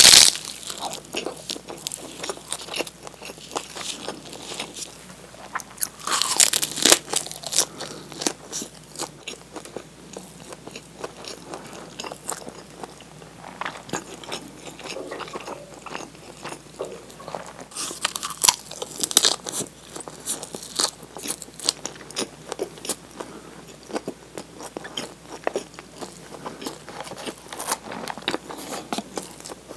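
Close-up eating sounds of a rice ball wrapped in nori seaweed: crackly crunching bites at the start, about six seconds in and again past halfway, with softer chewing clicks in between.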